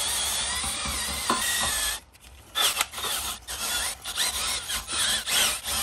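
A wire wheel brush on a drill scrubbing surface corrosion off the rear wheel hub's centre. It runs steadily, stops sharply about two seconds in, then comes back in several short bursts with its pitch rising and falling.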